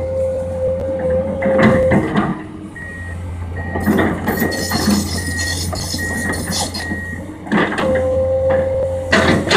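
Komatsu PC200 excavator's diesel engine running steadily as the machine works, with a steady whine early and again near the end and several clunks of the working gear. Through the middle a short beep repeats about twice a second.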